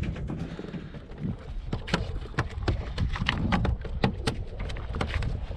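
Quick, irregular knocks and taps over a low rumble, typical of a freshly caught whiting flapping against the bucket it has just been dropped into.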